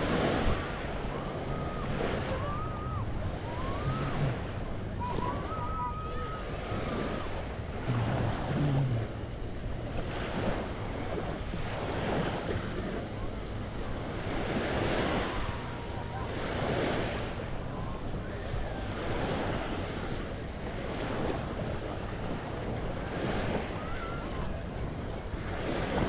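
Small waves washing up onto a sandy beach, a soft surge every second or two. Faint distant voices in the first several seconds.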